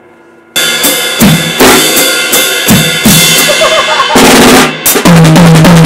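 Acoustic drum kit played hard: after a short pause, kick, snare and crashing cymbals, then a fast fill near the end whose last low hits ring on.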